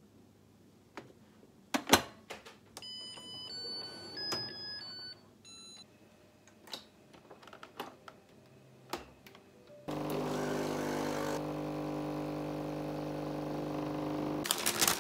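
Rice cooker lid clicking shut, followed by its electronic start tune of short stepped beeps. Later a Nespresso capsule coffee machine's pump hums steadily for about four and a half seconds while brewing coffee into a mug, then stops.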